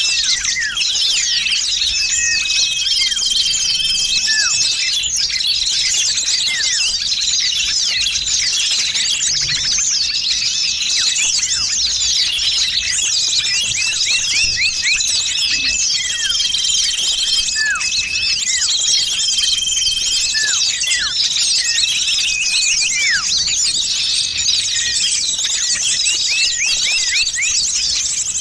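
A dense chorus of many small songbirds chirping and twittering at once, with short steady whistled notes and quick falling calls mixed in. It is a bird-luring (pikat) recording of noisy small birds, made to draw other birds in.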